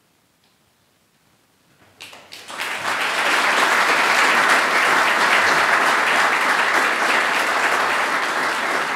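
Quiet at first, then an indoor audience breaks into applause about two seconds in, the clapping building quickly and holding steady.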